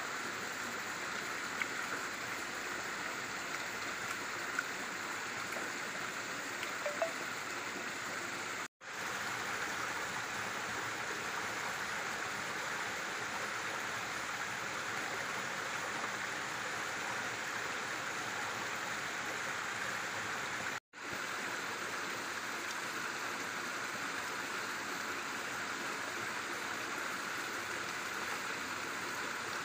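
A stream flowing steadily, an even rush of water that cuts out for an instant twice.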